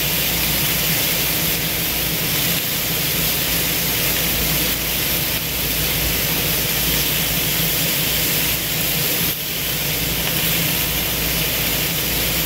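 Chicken thighs sizzling on a hot Blackstone 22-inch propane griddle as they are turned, a steady hiss over a low rumble.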